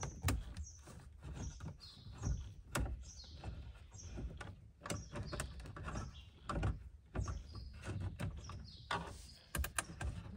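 Stubby screwdriver working countersunk screws out of a 1979 Ford Capri's plastic lower dash trim: a run of small clicks, taps and scrapes, with high chirping now and then.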